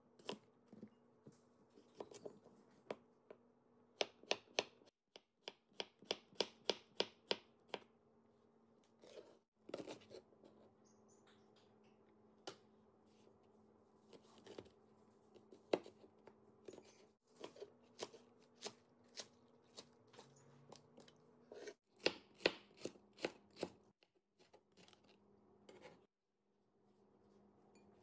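Kitchen knife chopping cucumber and green onions on a wooden cutting board: quick runs of sharp chops, a few a second, broken by short pauses.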